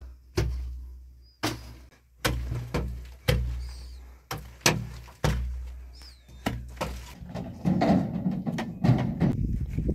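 A run of heavy strikes, about one a second and irregularly spaced, each followed by a deep booming tail that dies away. They give way to a denser rumble near the end.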